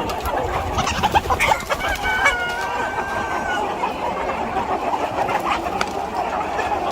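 A flock of Aseel chickens clucking continuously, with a few longer, held calls about one to three seconds in.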